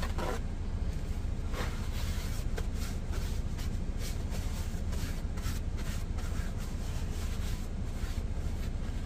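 Paper towels rustling and crinkling in the hands as they are pulled off and scrunched, many short scratchy rustles, over a steady low drone.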